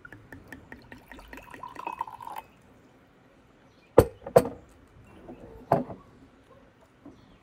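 Liquid poured from a glass carafe into a glass mug, trickling with a faint filling tone for about two and a half seconds. Then two sharp glass knocks on the wooden table about four seconds in, and another near six seconds, as the carafe and mug are set down and picked up.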